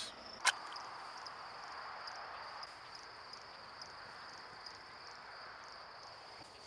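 Crickets chirping in a steady high trill over a faint hiss, with a single sharp click about half a second in.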